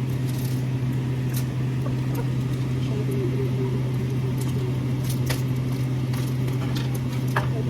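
A steady low drone holding one pitch throughout, with scattered light clicks and taps over it.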